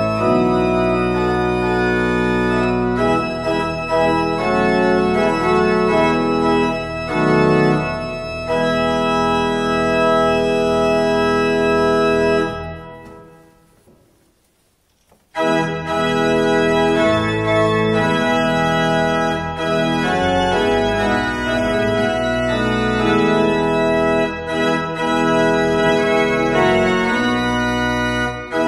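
An 18th-century baroque pipe organ, newly restored, playing a chorale in sustained chords. About halfway through the playing stops and the sound dies away in the church's echo. After a pause of about three seconds, during which a stop is drawn, playing resumes.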